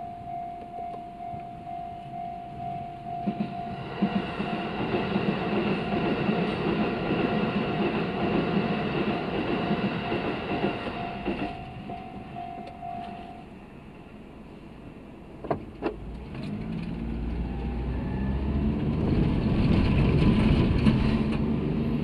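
Japanese level-crossing warning bell ringing in a steady repeating tone while a Shin-Keisei electric train runs past from about four seconds in, its wheels clacking on the rails; the bell stops at about thirteen seconds. After a short lull and a couple of clicks, the car's engine pulls away, growing louder.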